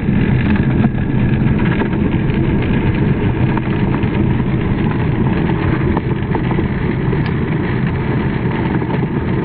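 Skateboard wheels rolling over rough pavement: a steady low rumble with a few faint clicks.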